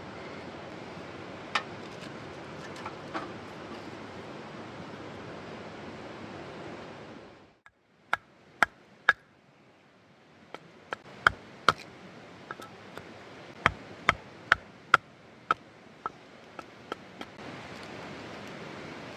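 Steady rushing of a river's flowing water. After a sudden break, a series of about fifteen sharp knocks, some with a brief ring, come at uneven intervals over a quieter rush of water.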